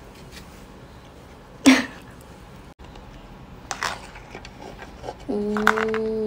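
A plastic instant-noodle bowl is handled and turned over onto a wooden plate, giving light clicks and knocks as the noodles drop out. There is a sharp loud knock about one and a half seconds in. Near the end a steady droning tone lasts about a second.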